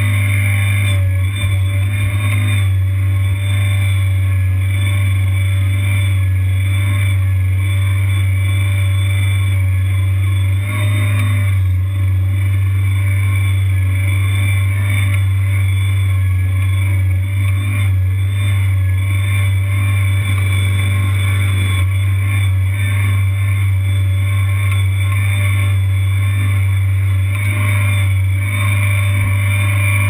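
Engine of a tracked Kanga Kid mini skid steer running steadily, heard close up from on the machine as it drives and works its log grapple.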